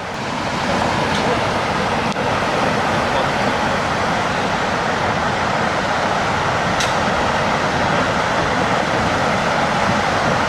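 Steady rushing noise of tsunami floodwater pouring through, a dense, even wash of sound with a couple of faint clicks in it.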